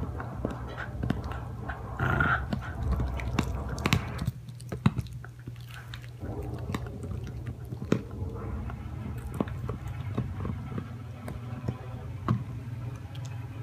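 Dog chewing and gnawing, with irregular sharp clicks of teeth over a steady low hum; about two seconds in comes a brief, louder higher-pitched sound.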